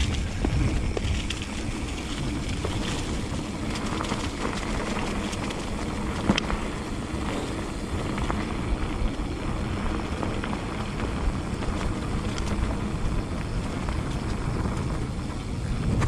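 Mountain bike rolling down a dirt track strewn with leaves: steady tyre noise with wind rumbling on the microphone, and scattered small clicks and rattles of the bike over bumps, with a sharper knock about six seconds in.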